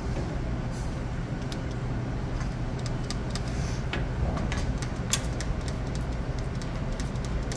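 Steady low mechanical hum with scattered faint clicks.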